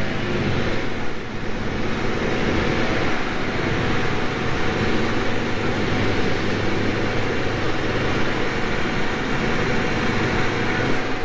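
Steady road traffic and engine noise: a constant low engine hum under an even rush of passing vehicles.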